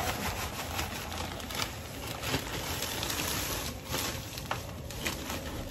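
Loose loam potting soil poured from a plastic bag into a pot and worked by hand: a soft, gritty rustle with a few light ticks.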